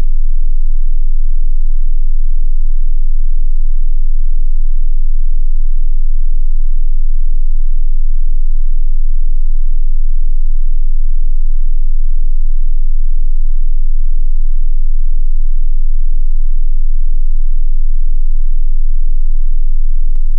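A steady, loud 18.98 Hz sine tone at the edge of infrasound, the so-called ghost frequency said to cause paranormal sensations.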